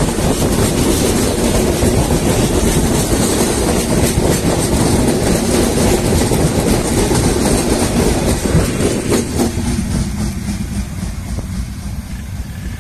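Intercity passenger train coaches running past close by, with a steady rumble and wheels clicking over the rail joints. About nine or ten seconds in, the sound thins and begins to fade as the train moves away.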